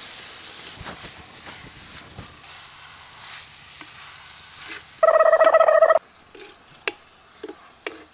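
Mutton frying in a clay pot, stirred with a slotted ladle: a soft sizzle with the ladle scraping and knocking against the pot. About five seconds in, a loud steady beep sounds for about a second and stops abruptly, followed by a few light knocks.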